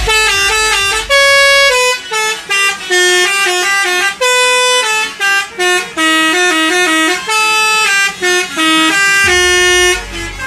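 Telolet multi-tone horn playing a quick tune: a string of loud, clear notes stepping up and down in pitch, with a few longer held notes between the short ones.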